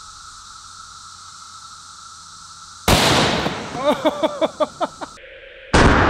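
Two loud .308 rifle shots from a Savage Axis bolt-action rifle, one about three seconds in and one near the end, each a sudden crack that rings on and dies away. Between them comes a run of short warbling sounds.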